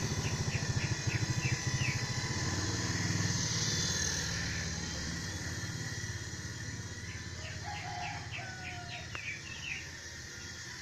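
Two runs of quick bird chirps over a low engine hum that pulses at first and then fades away.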